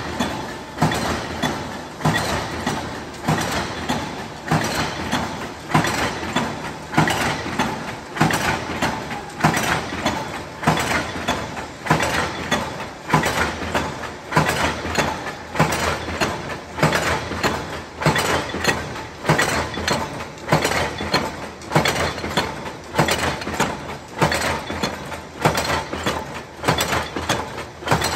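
Flywheel-driven bolt-forming machines making 16 mm bolts: a regular heavy clank about once a second as the dies strike, with lighter metallic clatter in between.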